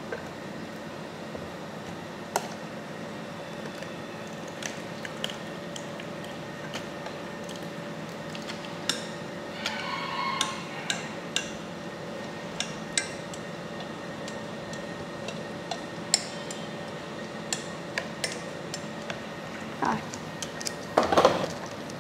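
Wooden chopsticks scraping and clinking against a stainless-steel bowl as a thick sauce is scraped out into a plastic box, with scattered light clicks and a wet squish. Near the end come a few louder scrapes as the chopsticks stir in the box. A steady hum runs underneath.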